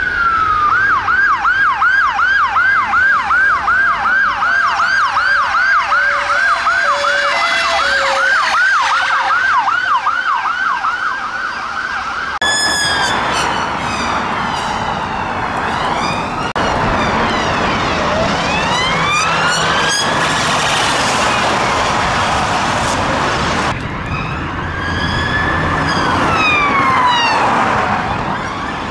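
UK ambulance siren on a fast yelp, about two and a half sweeps a second, for the first twelve seconds. It then gives way to police car sirens on a slow wail, rising and falling, with more than one siren overlapping out of step at times and traffic noise beneath.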